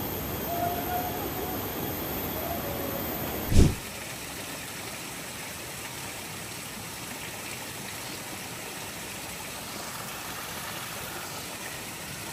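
Steady rush of flowing river water, broken about three and a half seconds in by one sharp thump, after which a quieter, steady rush of water continues.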